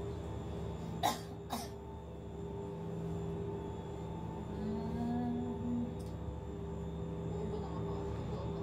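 Steady mechanical hum of the cable car system heard inside the gondola cabin in the station, with two short, sharp sounds about a second in and a second and a half in.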